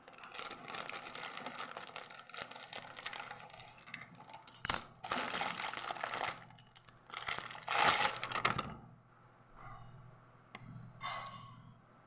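Plastic crinkling and rustling as it is handled, with several louder crackles, one about five seconds in and one about eight seconds in.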